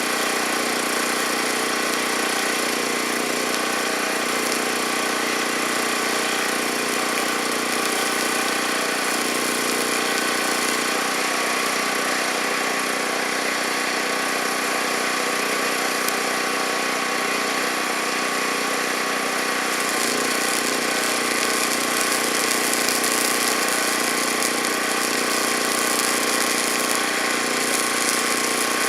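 A steady, continuous machine running noise, engine-like, whose tone shifts slightly partway through.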